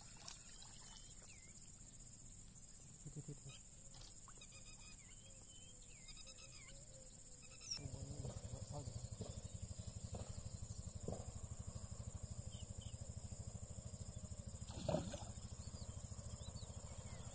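Outdoor insect chorus: a steady high-pitched drone with a higher chirp switching on and off, and a few faint calls. About eight seconds in, a low rumble starts and runs on, and a brief louder sound stands out near the end.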